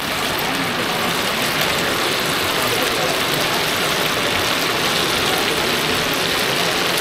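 Stinky tofu deep-frying in a wok of hot oil: a steady sizzle.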